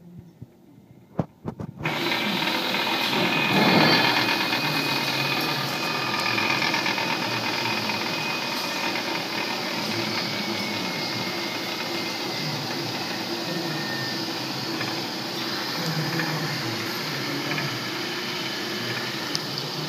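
Ross LDM-2 two-gallon double planetary mixer starting up about two seconds in, after a few clicks. Its 1 HP motor and Sterling variable-speed drive then run steadily with the mixing blades turning and the head raised.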